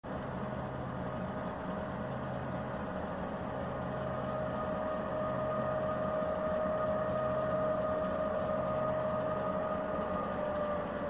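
Diesel-electric freight locomotives running, a steady engine drone with a high, steady whine held over it that dips slightly in pitch near the end. The drone grows a little louder through the middle.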